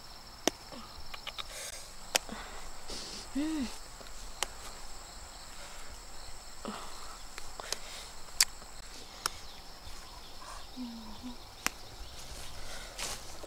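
Insects chirring in a steady high drone that stops about two-thirds of the way through, with scattered sharp clicks and snaps as wildflower stems are picked by hand.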